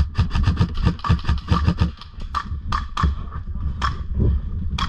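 Airsoft guns firing: a fast, even string of sharp cracks, about seven a second, for the first two seconds or so, then a few single shots spaced out through the rest.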